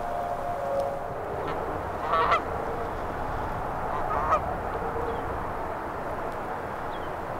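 Canada geese honking: two loud honks, one about two seconds in and another about four seconds in, over steady background noise.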